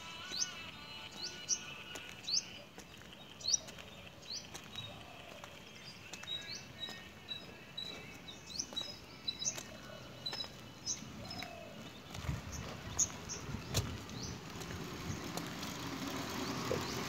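A bird calling over and over with short rising chirps, roughly one a second, with a run of quick short notes in the middle. From about twelve seconds in, a motor scooter's engine comes closer and grows louder.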